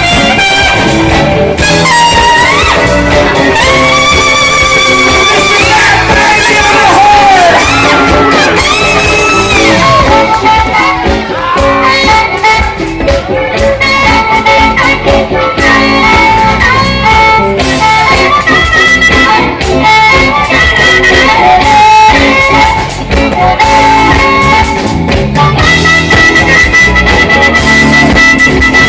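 Live blues band playing, loud and full, with a lead instrument bending and wavering its notes over the band.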